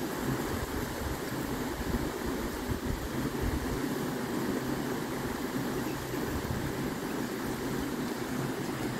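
Steady outdoor ambience from a nature field recording: a continuous, even rushing noise with no distinct events.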